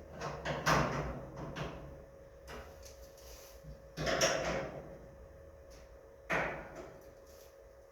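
A hand tool knocking and scraping against the bolts and brackets of a garage door as they are checked and tightened: a string of separate clicks and knocks, the loudest about a second in, about four seconds in and about six seconds in.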